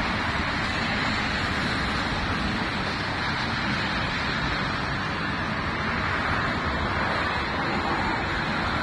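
Steady hiss of city traffic on a rain-soaked street: car tyres running on wet asphalt, over a low rumble.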